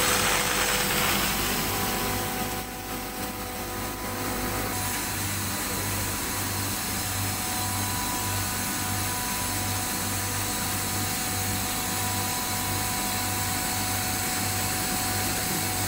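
Steady hiss and hum with a low pulsing throb, as compressed air pushes old oil out of a Kaiser Sigma screw compressor's oil tank through a drain hose. The hiss drops briefly a few seconds in, then holds steady.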